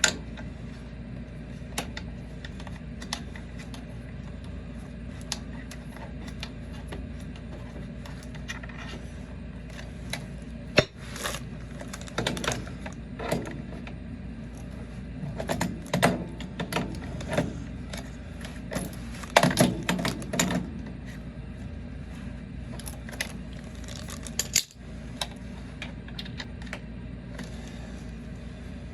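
Metal tools and fittings clinking, scraping and rattling in irregular bursts, busiest in the middle, as a water heater's gas control valve is threaded back into the tank and reconnected.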